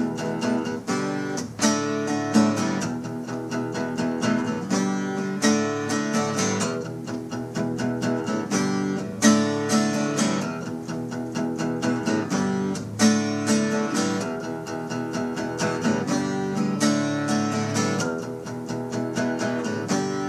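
Background music led by strummed acoustic guitar.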